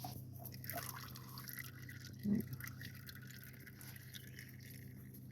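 Engine oil trickling and dripping out around the loosened oil filter of a Massey Ferguson 1220 compact tractor, a faint steady flow. A brief low sound stands out about two seconds in.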